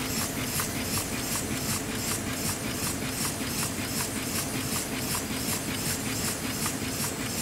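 Printing press running, a steady mechanical hiss and clatter with a fast, even beat of short strokes.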